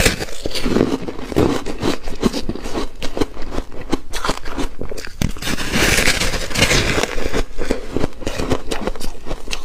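Foam ice (frozen freezer frost) being bitten and chewed close to the mouth: a steady run of crisp, crackly crunches, densest about six seconds in.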